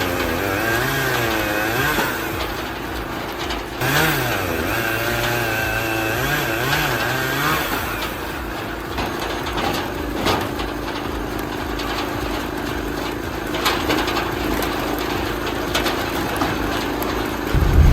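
Engine of a hydraulic log splitter running, its pitch wavering up and down as it works and later settling steadier. There are a few sharp knocks from the wood, and a heavy low thump near the end.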